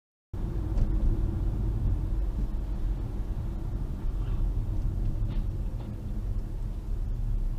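Steady low rumble of a car on the road, engine and tyre noise as picked up by a dash cam, starting abruptly just after the start.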